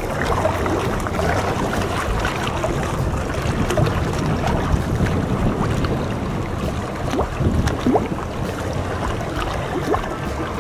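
Gusty wind rumbling on the microphone, with choppy water lapping and splashing.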